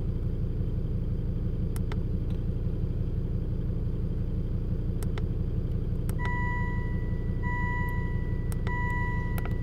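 2004 Volvo S60's instrument-cluster warning gong, driven by a scan-tool actuator test, sounding from about six seconds in: a steady electronic chime tone repeated roughly once a second, each note held about a second with short gaps. It plays over a steady low rumble.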